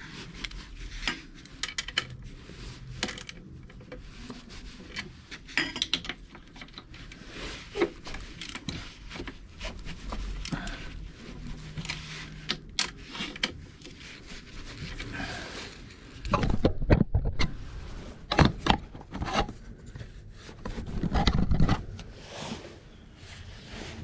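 Hands-on work on a scooter's rear wheel: metal parts and tools clinking, scraping and rubbing in irregular knocks. About two-thirds of the way in, and again near the end, come two louder stretches of heavier knocking and scraping.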